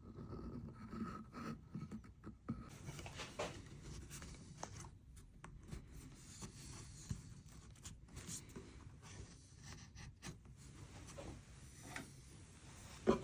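Faint, irregular scratching with occasional light taps, like pencil marking or small hand work on wood.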